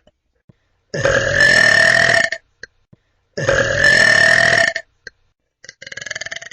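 A person burping: two loud, long burps of over a second each, then a weaker third burp near the end.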